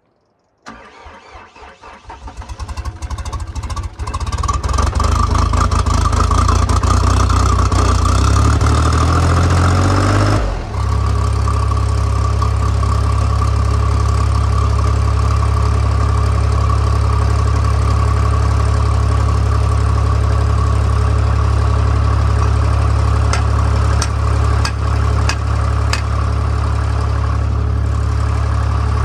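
An engine is cranked and catches a few seconds in. It runs up and wavers in pitch, then settles at about ten seconds into a steady idle. A few sharp clicks come near the end.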